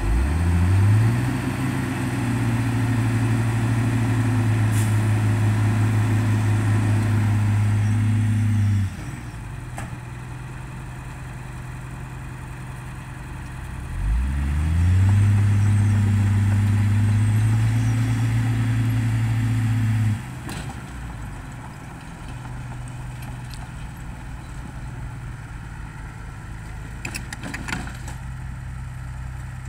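Dump truck's diesel engine revved up and held at high revs for about eight seconds, dropping back to idle, then revved and held again for about six seconds before settling to idle: the truck straining to drive through slippery wet soil.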